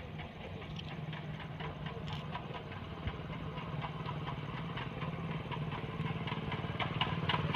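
An engine idling steadily, a low even pulsing hum that grows gradually louder toward the end.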